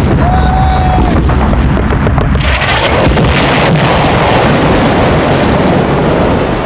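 Battle sound effects: a held tone in the first second, then a continuous din of explosions and low rumbling blasts.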